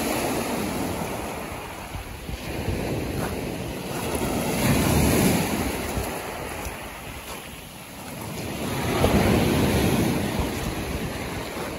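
Surf breaking and washing up a sand-and-shingle beach, swelling three times, at the start, about five seconds in and about nine seconds in, with wind buffeting the microphone.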